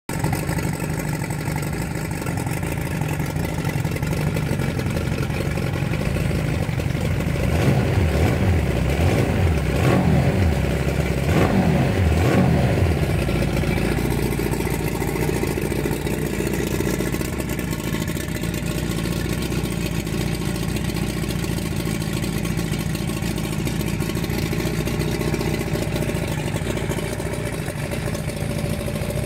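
1952 Mercury Mark 40H four-cylinder two-stroke outboard running in a test tank, revved up and back down twice around the middle, then settling into a steady idle. It runs on freshly replaced crankshaft seals, which the owner credits with its now-even idle and sound.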